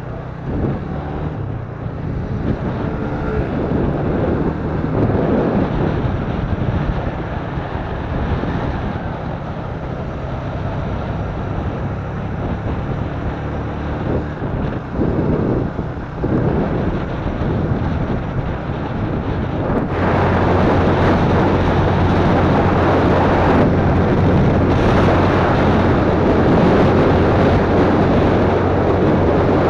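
Yamaha FZ150i's single-cylinder four-stroke engine under way, its note rising and falling as the bike pulls away and works through the gears, with wind rushing over the helmet camera's microphone. About two-thirds through the sound turns louder and steady: a constant engine hum under heavy wind noise at cruising speed.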